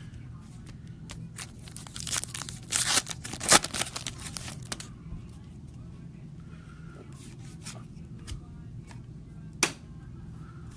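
Foil wrapper of a trading-card pack being torn open, with a few seconds of tearing and crinkling starting about two seconds in. Scattered light clicks and rustles of handling follow.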